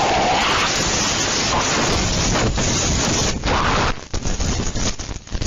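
Hurricane wind and driving rain in a loud, steady rushing roar, with gusts buffeting the microphone. About four seconds in the noise turns choppy, rising and dropping sharply.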